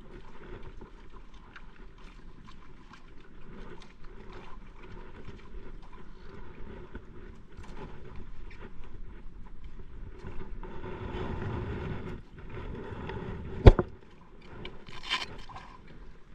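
Sounds aboard a small fishing boat at sea: an uneven noisy wash of water and hull with scattered small knocks and clicks, swelling for a few seconds past the middle. Near the end comes one sharp knock, the loudest sound, then a brief hiss.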